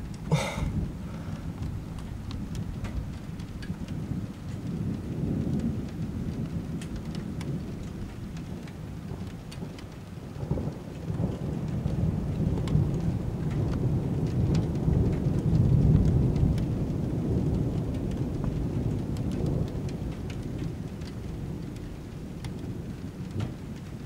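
Steady rain with many small drop ticks, and the rolling rumble of thunder from a lightning stroke about 5 km away. The thunder builds from about ten seconds in, is loudest a few seconds later, then slowly dies away.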